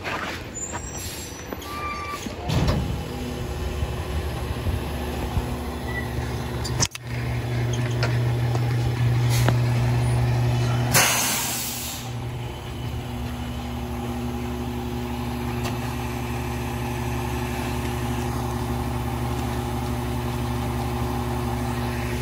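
Diesel engine of a Mack Granite rear-loader garbage truck running as the truck pulls up, louder for a few seconds. About halfway through comes a loud hiss of air brakes of about a second, then the engine idles steadily.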